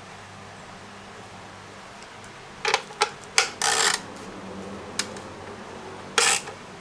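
Hand-tool work on a car's turn signal housing: a few sharp metallic clicks, then short rasping runs of a few tenths of a second each, as its mounting nuts are run on and snugged up. A steady low hum sits underneath.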